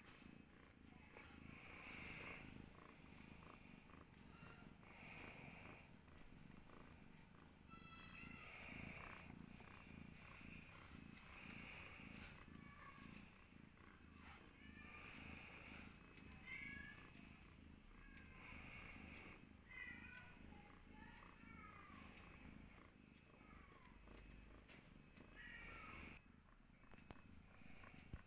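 Domestic cat purring while she gives birth, a faint, steady low purr, with brief high chirping sounds every few seconds.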